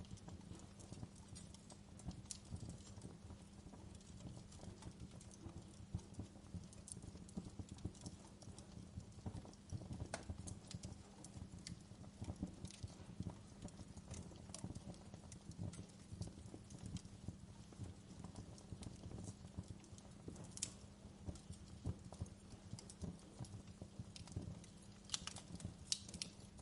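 Wood fire crackling: a dense low crackle with scattered sharp pops, a few louder pops near the end.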